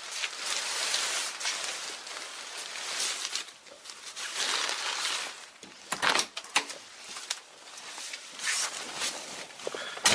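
Rustling footsteps while walking round a Citroen Ami 8. The driver's door latch clicks open about six seconds in, and the door shuts with a sharp clunk at the very end.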